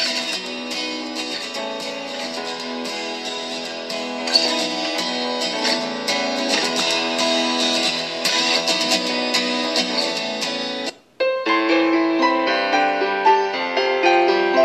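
Recorded music playing through an XBOOM Mini Capsule portable speaker: a strummed guitar track that cuts off suddenly about eleven seconds in, then after a brief gap an acoustic piano track begins. The sound is thin in the deep bass.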